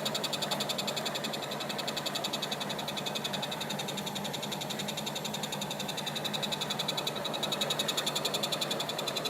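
Daikin air conditioner running on heat and giving off an abnormal, cricket-like chirring: a fast, even ticking of about a dozen ticks a second, over a steady low hum. It is a fault noise whose cause is not known.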